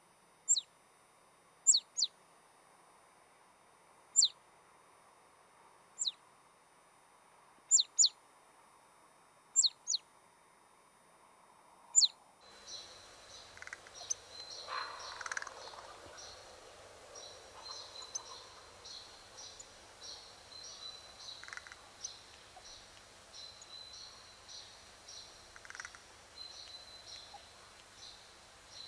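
A songbird calling in single sharp, high notes that drop steeply in pitch, one every second or two. About twelve seconds in the sound changes to a steady background of faint high twittering with occasional lower calls.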